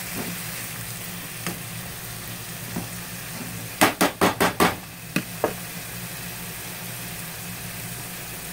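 Steak strips and red bell pepper sizzling in a frying pan while a slotted spatula stirs and scrapes them. About four seconds in, five quick sharp knocks as the spatula is tapped against the pan, then two lighter ones, then only the steady sizzle.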